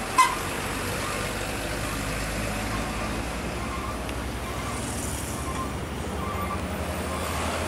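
Isuzu Giga diesel tractor-trailer passing close at road speed, a steady low engine rumble mixed with tyre and road noise, followed by other road traffic. A brief loud blip sounds right at the start.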